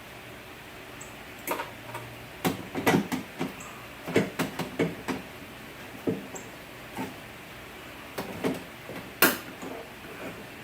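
Irregular clicks, taps and knocks of metal and plastic door parts and tools being handled inside a car door, with one sharper knock near the end.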